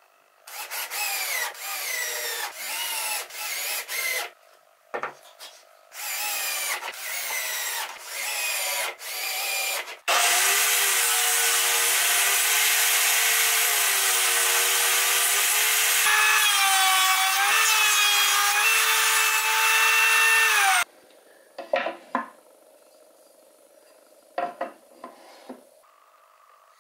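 Metal bar clamps slid and tightened on a wooden drawer box: two runs of short, repeated scraping strokes. Then a benchtop table saw runs and rips a thin wood strip for about eleven seconds, its pitch wavering under load, and stops suddenly; a few faint handling clicks follow.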